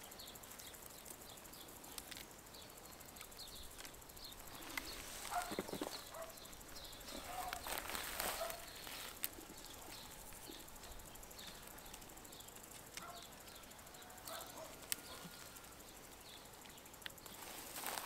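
Leaves and branches of a peach tree rustling in bouts as fruit is picked, over a faint outdoor background in which a short high chirp repeats about twice a second.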